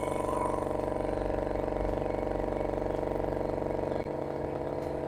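Hitto 30-litre silent air compressor running, its twin-head pump and copper-wound motor giving a steady, less noisy hum as it pumps the tank up toward 8 bar. The sound changes slightly about four seconds in.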